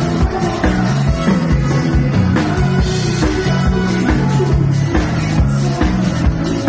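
Live dance-band music with electric guitar and drum kit, played over a steady beat.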